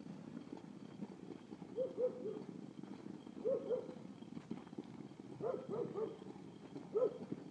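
Concrete block dragged on a chain over rough asphalt: a steady gritty scraping. Short squeaky chirps come in clusters of two or three, about every one and a half to two seconds, and are the loudest sounds.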